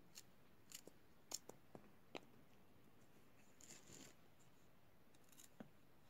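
Faint, scattered clicks and a short crinkle as okra pods and a plastic bag are handled.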